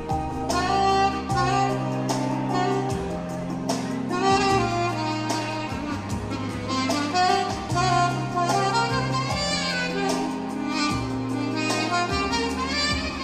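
Instrumental music: a jazzy lead melody over held bass notes that change every second or two.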